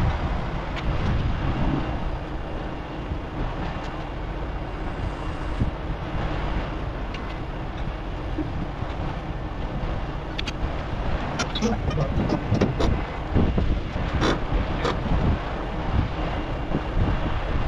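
Heavy diesel truck engine running steadily, with a run of sharp metallic clanks and knocks from about ten seconds in.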